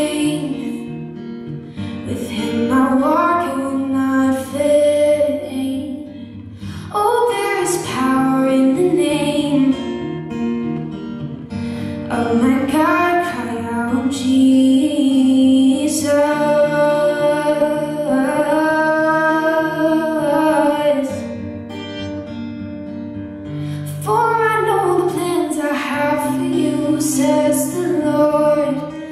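A woman singing solo with her own acoustic guitar accompaniment, holding long notes in the middle; the voice drops out briefly about three-quarters through, leaving the guitar, then comes back.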